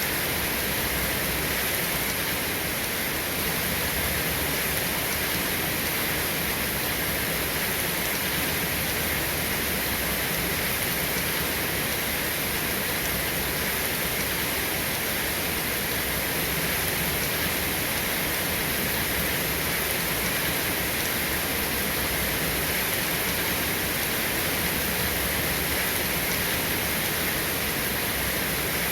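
Rain falling steadily, an even hiss with no breaks or thunder.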